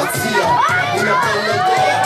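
Crowd of children and adults shouting and cheering together, many voices overlapping.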